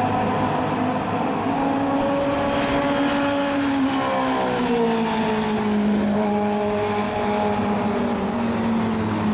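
Several classic Mini race cars' engines running hard at racing speed, their pitch falling about halfway through.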